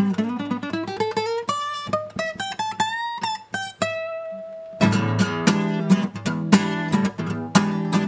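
Acoustic guitar played solo: single picked notes climbing in a rising run, a held note, then strummed chords in a steady rhythm from about five seconds in.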